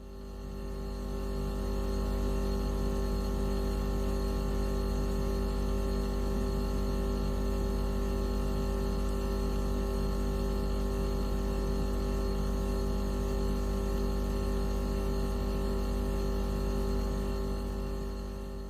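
Electronic tone played as a mosquito-repellent sound: a steady drone of several held pitches, heaviest in a deep hum. It fades in over the first two seconds and fades out near the end.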